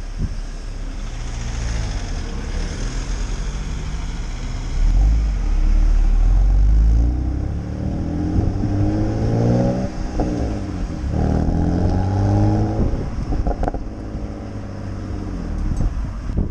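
BMW E92 325i's N52B25 2.5-litre straight-six exhaust through a BMW Performance rear silencer, pulling through the gears. The revs climb, drop at a shift and climb again, with a deep heavy rumble about five seconds in and a couple of short sharp cracks in the last few seconds.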